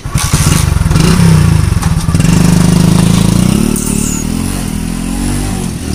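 Motorcycle engine starting suddenly and running loud as the bike pulls away, its pitch rising about two seconds in and easing off near the end.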